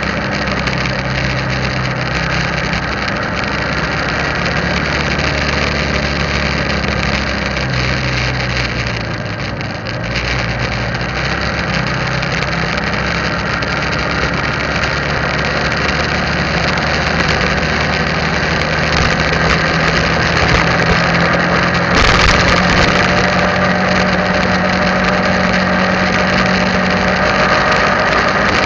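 Motorbike engine running on the move, its pitch stepping up and down as the speed changes, over steady wind and road noise. About three-quarters of the way through comes a brief louder rush of noise.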